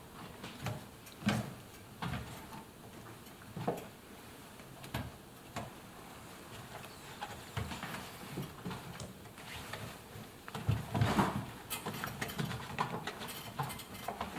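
Rubber door seal of an Indesit washing machine being stretched and pressed onto the tub opening by hand: irregular rubbing and light knocks, busiest about eleven seconds in.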